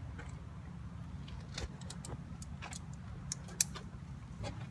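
Scattered, irregular metallic clicks and clinks of hand tools being handled during engine-bay work, the sharpest a little after the middle, over a steady low hum.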